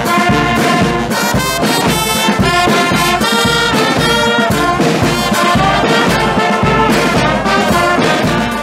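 Brass band of trumpets and trombones playing over a steady low beat.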